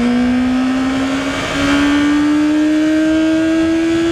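Honda CBR650F's 650cc inline-four engine accelerating hard in first gear, its pitch rising steadily as the revs climb. Wind rush on the helmet-mounted microphone runs underneath.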